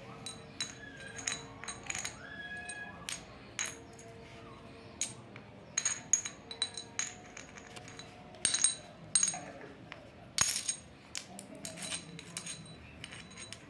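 A small coin tapping and clinking against a large old coin as they are handled: irregular sharp metallic clicks, each with a short high ring, thickest in the second half.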